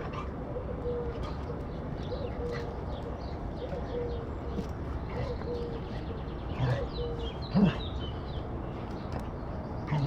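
Young puppies whining and squeaking in a steady, repeated, cooing whimper. There are two short bumps, the louder about seven and a half seconds in.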